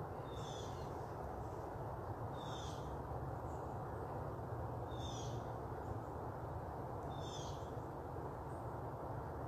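A bird's short, high call falling in pitch, given four times about every two and a half seconds, over a steady low background rumble.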